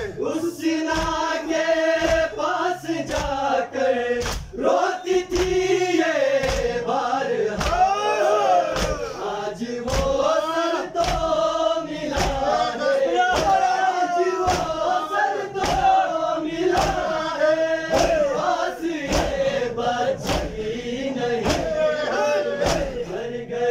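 A crowd of men chanting a nauha, a Shia mourning lament, in unison, with rhythmic chest-beating (matam). The hand strikes come sharply and evenly, about one and a half a second, in time with the chant.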